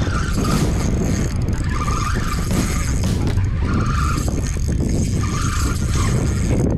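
Wind buffeting the camera microphone: a steady, loud, rough low rumble with an irregular flutter.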